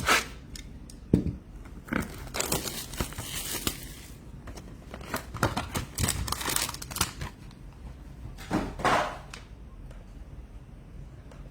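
Trading-card packaging being handled: plastic and wrapper crinkling and tearing in irregular bursts, with cards and packaging shuffled between them.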